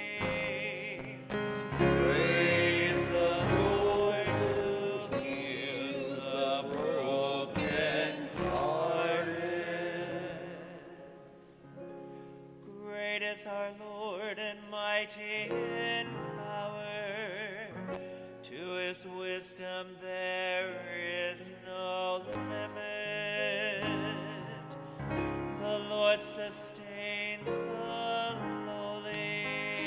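Responsorial psalm sung by a cantor with piano accompaniment, the voice singing with vibrato over sustained chords; the music eases off briefly about a third of the way through, then the singing resumes.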